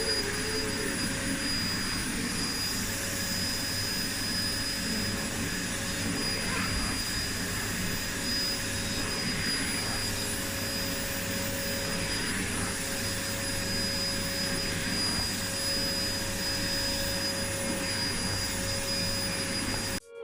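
Black & Decker VM1880-B5 bagless multi-cyclonic vacuum cleaner running at a steady speed: an even rush of air with a high whine, like a jet taking off. It cuts off suddenly near the end.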